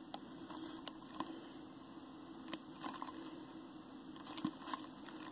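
Faint, scattered light clicks and taps of sealed trading-card booster boxes being handled, over a low steady background hum.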